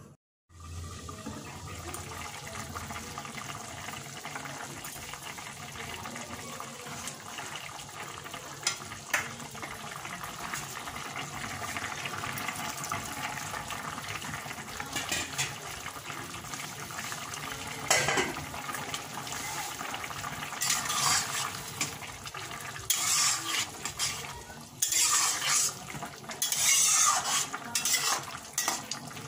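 A thin curry bubbles in a metal kadai while a metal spatula stirs it, scraping and clinking against the pan. The stirring gets busier and louder in the last several seconds.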